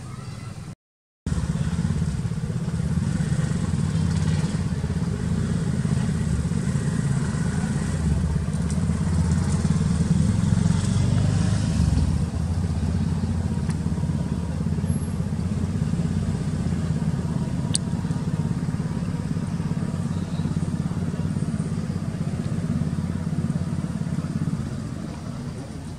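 A small engine running steadily at a low, even hum, like a motorbike idling. It cuts in abruptly about a second in and drops a little near the end.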